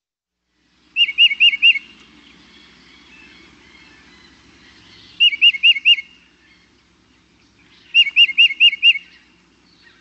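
Tufted titmouse singing its whistled 'peter-peter-peter' song. It gives three quick phrases of four or five repeated two-part notes, a few seconds apart, over a faint background hiss from the recording.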